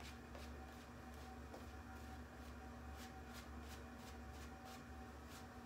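Shaving brush swishing soap lather over the face and neck, a soft brushing stroke about two to three times a second.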